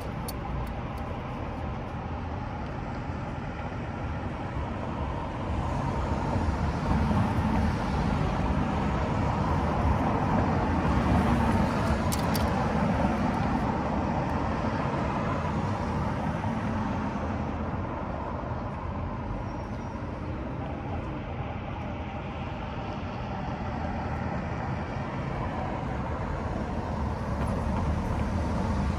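Road traffic: cars passing on the street, the noise swelling as vehicles go by from about six seconds in and again near the end.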